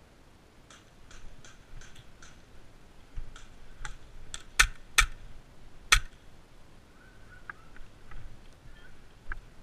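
Airsoft gunfire. About five faint clicks come in a quick run, roughly three a second, then sharper, louder pops follow, three of them standing out near the middle, with a few faint clicks again near the end.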